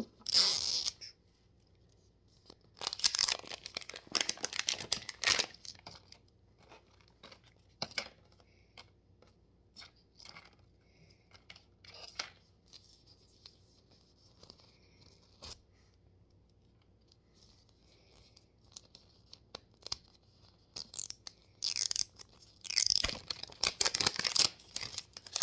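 Packaging being torn open by hand in several stretches, the longest a few seconds in and near the end, with small clicks and rustles between.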